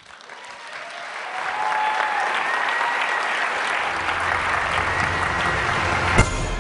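Audience applause, swelling over the first second and a half and then holding steady. A low hum joins about halfway through, and there is a sharp click near the end.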